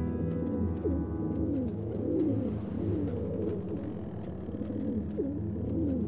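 Rock pigeons cooing: several overlapping low, warbling coos repeating.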